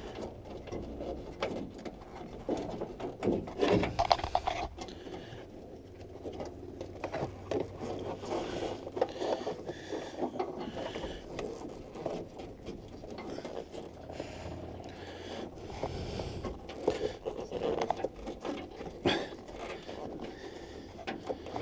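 Irregular scraping, rustling and small clicks of wires being pulled and pushed into a tight connector in a van door's wiring loom.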